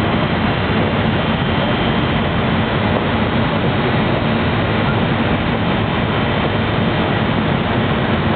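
Steady, even rushing noise with a low hum underneath, unchanging throughout with no distinct events: the loud background of the indoor pond exhibit.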